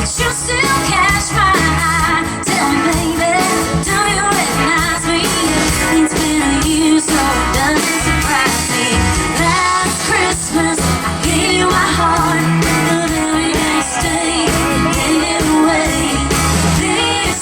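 Live band music: a woman singing a Christmas song over guitar and band accompaniment, played loud and steady through a stage sound system.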